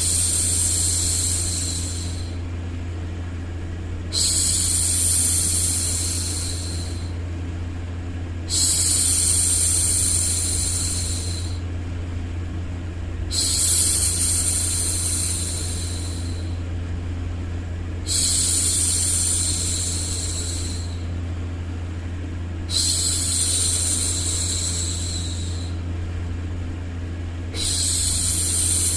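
A woman's long hushing 'shhh', the kind used to soothe a baby, repeated about every four and a half seconds, each lasting about two seconds and fading out. Under it runs a steady low hum of background noise.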